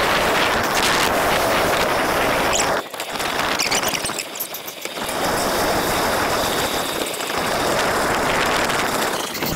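Wind rushing over an action camera's microphone on a moving road bike, an even loud hiss that eases off briefly about three seconds in and again around four to five seconds in.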